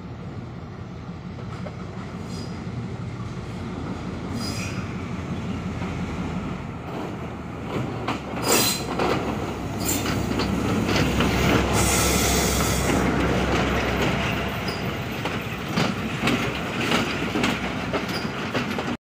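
Class M2 diesel locomotive, number 572, hauling a passenger train slowly alongside a platform. Its engine rumble builds and is loudest as the locomotive passes about ten seconds in. Clicks and knocks come from the wheels over the rail joints as the carriages roll by.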